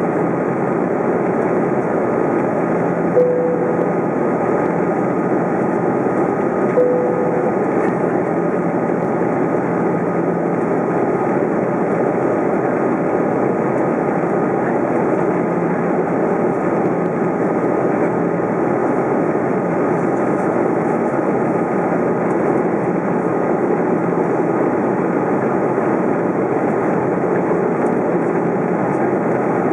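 Steady cabin noise of an Airbus A330 airliner in flight, heard from a window seat by the wing: the even rush of the twin jet engines and the airflow. Two short single-pitch chimes sound about three seconds in and again about seven seconds in.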